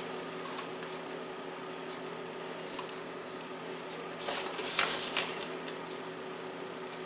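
Soft rustling and scraping about four to five seconds in, as crumbly brown-sugar and butter topping is scraped by hand out of a plastic bowl and sprinkled over the pans, over a steady low hum.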